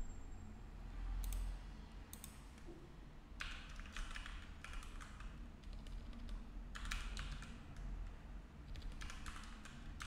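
Computer keyboard being typed on in short bursts of faint clicks, with pauses between the bursts.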